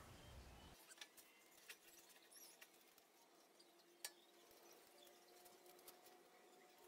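Near silence with faint scattered clicks and taps, and one sharper click about four seconds in: hands handling a small electric motor with a grinding wheel on its steel mount.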